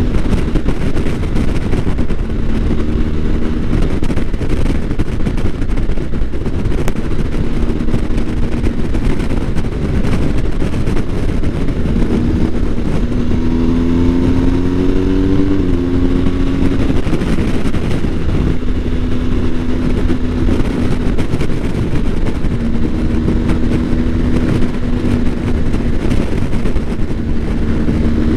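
BMW R1250 GS boxer-twin engine running at road speed under heavy wind rush, its pitch rising as the bike accelerates and dropping back at gear changes.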